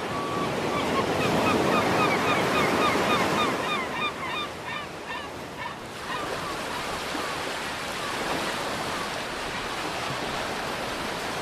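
Waves washing on a beach with a steady hiss of surf. Over the first half a bird calls in a rapid run of short, curving calls, about three or four a second, which fade out around the middle.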